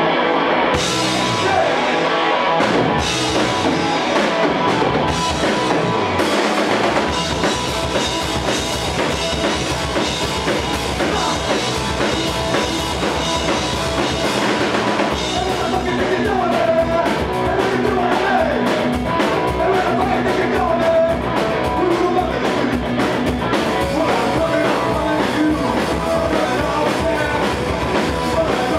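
Live rock band playing: drum kit, electric guitar and bass guitar, with singing. Separate cymbal crashes stand out in the first few seconds, then the playing grows denser with quicker cymbal hits from about halfway through.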